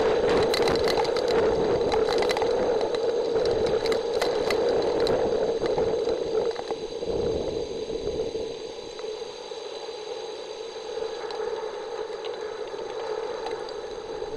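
Heavy rain falling, with many sharp taps of drops. The taps thin out and the rain eases off about seven seconds in.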